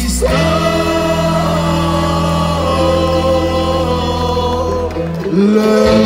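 Live folk band music: several voices singing long held notes over guitar and accordion, moving to new notes about five seconds in.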